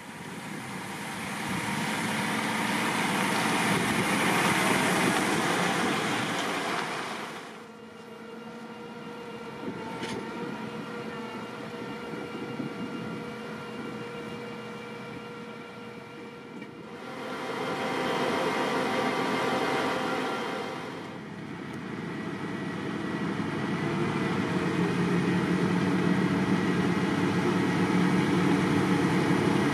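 Heavy diesel vehicles at slurry work. First a slurry tanker truck drives closer on a dirt track. Then engines run steadily while slurry is transferred from the tanker into a Vervaet Hydro Trike. Last, the Hydro Trike's engine works steadily under load and grows louder as it injects slurry into the field.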